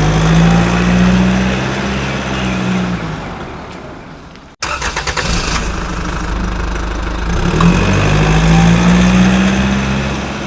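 A motor vehicle engine running and revving, fading away before cutting off abruptly about four and a half seconds in, then starting again and running loudly to the end.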